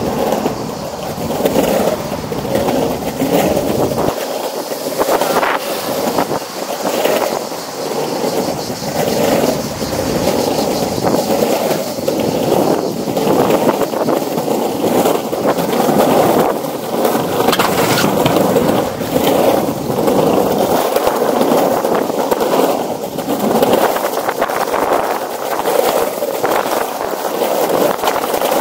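Skateboard wheels rolling steadily over plank boardwalk decking, a continuous rumbling roll with a few sharper clicks along the way.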